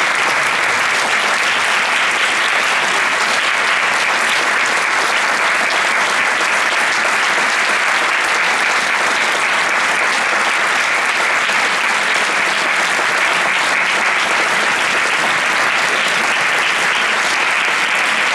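Theatre audience applauding steadily: many hands clapping in a dense, even wash for the cast's curtain call.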